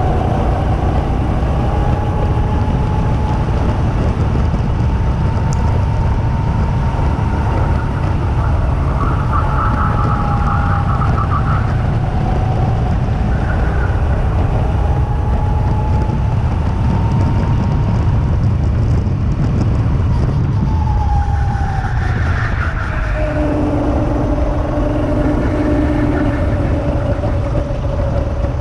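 Two-seater go-kart running on track with wind noise on the microphone. Its whine rises and falls with speed through the corners, then drops to a lower steady note about three-quarters of the way through as the kart slows.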